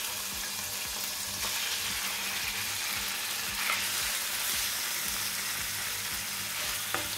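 Diced raw chicken sizzling steadily in hot butter and oil in a nonstick frying pan, stirred with a wooden spatula.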